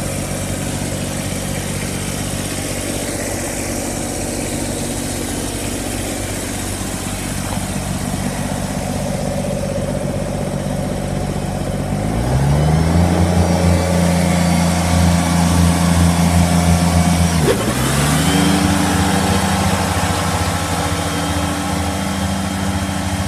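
Kubota BX2350 compact tractor's three-cylinder diesel engine idling steadily, then revved up about halfway through and held at high speed. A few seconds later the revs dip briefly and climb straight back up, staying high.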